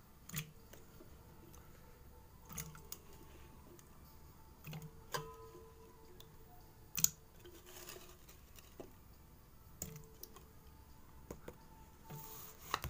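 Chunks of peeled taro root going into a steel pot of water to be washed: scattered light knocks and clinks against the pot, with a couple of brief sloshes of water.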